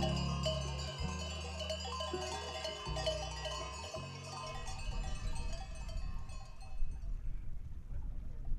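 Bells of a flock of sheep tinkling, with occasional sheep bleats. Background music with slow bass notes plays under them and fades out about halfway through.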